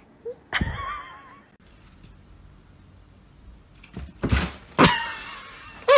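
Dull thumps of a kitten leaping against a cardboard box: one about half a second in, followed by a brief wavering squeak, then two more around four and five seconds in.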